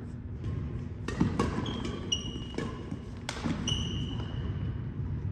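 Badminton rally: rackets striking the shuttlecock with sharp knocks, two in quick succession about a second in, then two more a little later. Sneakers squeak on the hardwood court floor in short, high squeals, the longest near the end.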